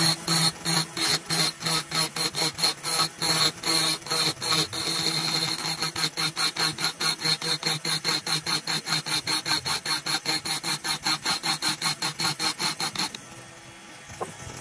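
Cordless brushless rotary tool spinning a long double-cut tungsten carbide burr, grinding the port of a Predator 212 aluminium cylinder head: a steady high whine broken by quick sweeping strokes of the burr across the metal, about four a second. The grinding stops about a second before the end.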